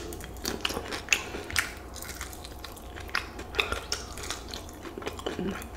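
Chewing and biting into crispy fried chicken wings close to the microphone: irregular crunchy clicks and mouth sounds.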